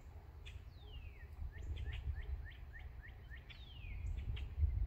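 A songbird singing clear whistled phrases: a long falling whistle, a run of short rising chirps about three a second, then another long falling whistle. A steady low rumble runs underneath and grows louder near the end.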